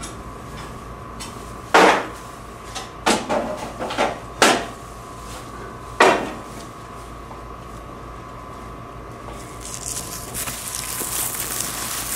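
Half a dozen sharp metallic clanks and knocks as vending machine parts are handled, over a steady electrical hum. Near the end a hissing rustle starts.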